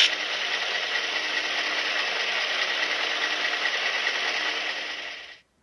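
Simulated diesel locomotive engine idling from the DCC sound decoders' small speakers in HO scale Athearn Genesis FP7 models, a steady hissy rumble, with a short click at the start. About five seconds in the sound fades out and stops as the decoder sound is switched off.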